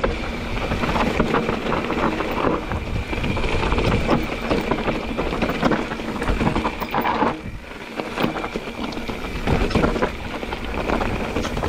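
Mountain bike riding down a rocky dirt trail: tyres rolling and crunching over dirt and stones, with the bike rattling and knocking over the bumps and a low rumble of wind on the microphone.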